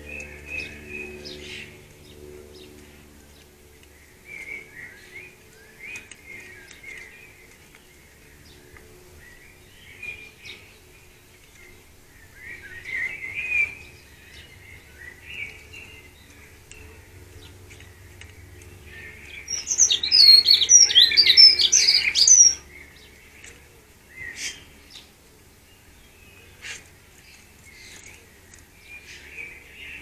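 Wild garden birds chirping and twittering on and off, with a loud burst of rapid, high song lasting about three seconds around twenty seconds in.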